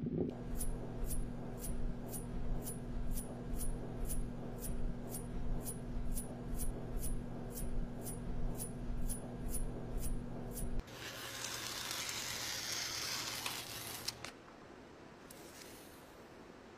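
Animation sound effects: a steady run of sharp ticks, about two and a half a second, over a low hum, stopping about eleven seconds in. A few seconds of hissing swish follow, then a faint hiss.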